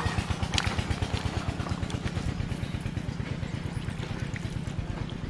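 A small engine running steadily with a fast, even beat of about ten pulses a second.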